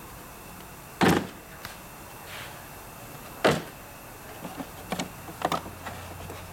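Handling noise in a metal toolbox drawer: two sharp knocks, about a second and three and a half seconds in, then a quick run of small clicks near the end as a red hard-plastic torque wrench case is unlatched and opened.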